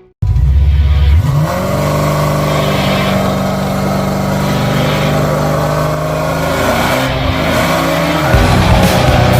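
Race car engine running hard: it revs up about a second in, holds a steady high note, then its pitch shifts again near the end.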